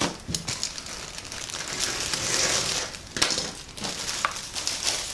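Plastic packaging crinkling and rustling as a foam RC plane part is handled and unwrapped, with a few sharp clicks about three to four seconds in.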